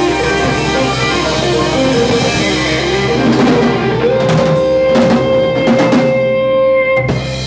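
Live rock band with electric guitar, bass, drum kit and keyboard playing the end of a song. The lead guitar climbs to one long held note over cymbal crashes, and the band hits a final crash near the end.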